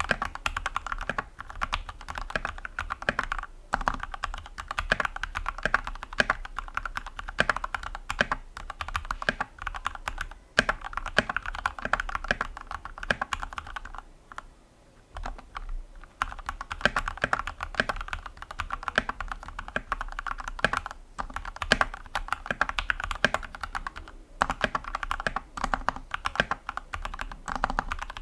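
Fast continuous typing on a GK61 mechanical keyboard fitted with lubed Gateron Yellow linear switches and PBT keycaps, dense key clicks that stop for about two seconds midway before resuming.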